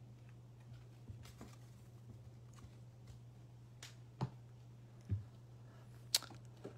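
Faint scattered clicks and taps of trading cards and their packaging being handled, with a few sharper taps in the second half, over a steady low hum.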